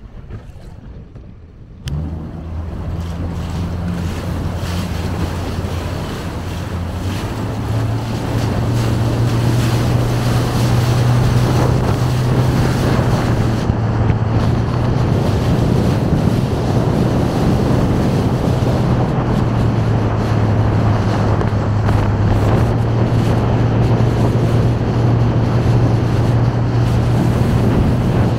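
A motorboat engine runs with a steady low hum under wind on the microphone and rushing water. It comes in suddenly about two seconds in, and around eight seconds in the hum steps up in pitch and gets louder as the boat speeds up.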